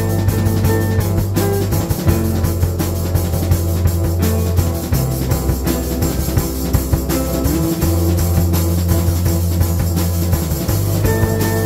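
Background music with a steady drum beat and held bass notes that change every couple of seconds.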